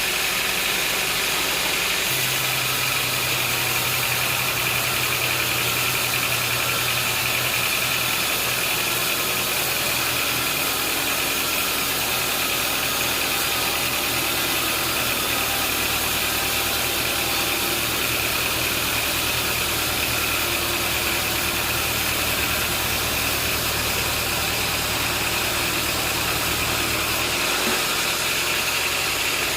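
An engine running steadily with a high whine over it. Its low hum shifts about two seconds in and again near the end.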